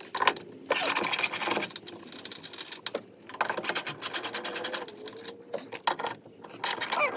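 Ratchet wrench clicking in rapid runs, several bursts with short pauses, as the 11 mm nuts holding a pickup's side mirror to the door are backed off.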